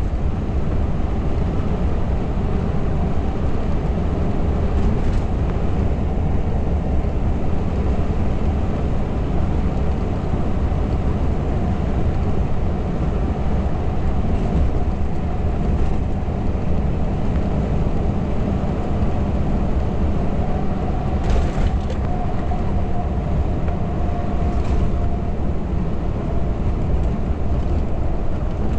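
Scania R580's V8 diesel engine running steadily while the loaded truck drives, heard inside the cab with heavy tyre and road rumble. A few brief hisses break through, the loudest about 21 seconds in.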